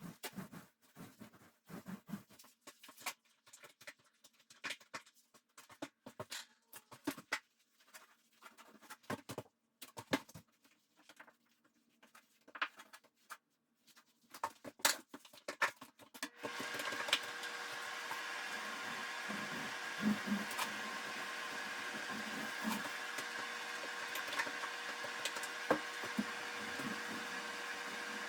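Scattered light scraping and tapping of hand work, then a steady machine hum with a held whine that starts suddenly about sixteen seconds in.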